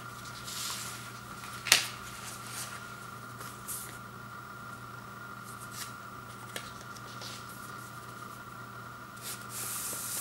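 Paper inner sleeves of vinyl LP records being handled and rustled, with one sharp tap about two seconds in. Near the end a record slides out of its paper sleeve with a short hiss.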